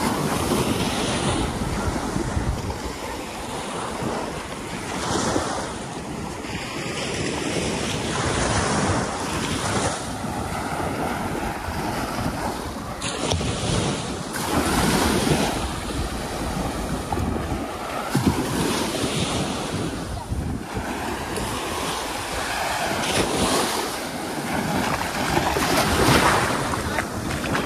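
Sea waves breaking and washing up a sandy shore, the surf swelling and easing every few seconds, with wind buffeting the microphone.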